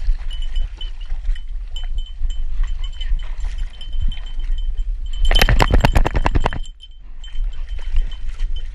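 A detector dog wading through marsh water and reeds, heard from a camera on its harness. A high, steady ringing from a bell on its gear jingles throughout, over splashing and rustling. About five seconds in there is a loud, fast rattling for about a second and a half that stops suddenly.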